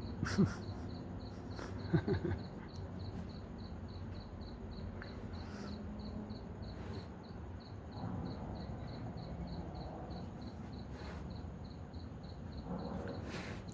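Crickets chirping in a steady, even pulse, about three to four chirps a second, over a low background hum. There are a couple of short sharp knocks in the first two seconds.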